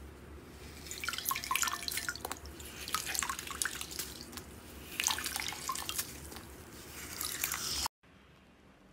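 Slime being squeezed and stretched by hand: an irregular run of wet clicks and small bubble pops, like dripping, which stops suddenly near the end.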